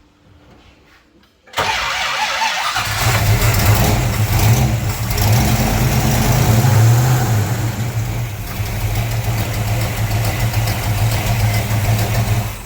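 Rebuilt Pontiac 400 V8 of a 1970 GTO turning over and starting about a second and a half in, then running loudly for about ten seconds before it is shut off near the end.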